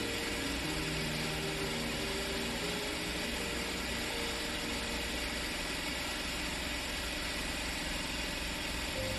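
Soft background music of slow, sustained notes over a steady low hum.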